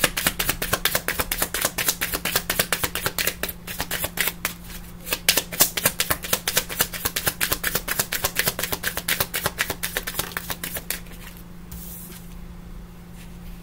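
Tarot cards being shuffled by hand: a quick run of card clicks, about six or seven a second, that stops about eleven seconds in.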